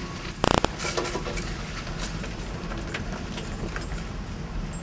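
Nissan Frontier pickup heard from inside the cab as it creeps along a rough, muddy dirt trail in four-wheel drive: a steady low engine and tyre rumble with scattered knocks and rattles from the bumpy ground. About half a second in there is a short, loud burst of rapid rattling.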